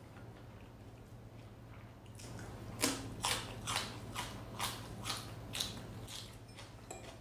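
A person chewing crunchy food close to the microphone: about seven sharp crunches at a little over two a second, starting about three seconds in, with a few fainter ones near the end. A steady low hum runs underneath.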